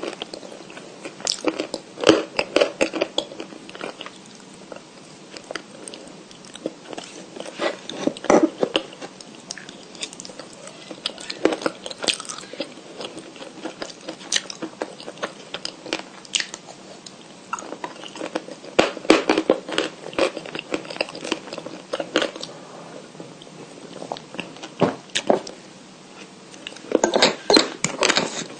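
Close-up biting and chewing of white chalk: clusters of dry crunches and crackles with short pauses between bites, the busiest stretches about two seconds in, two-thirds of the way through, and near the end.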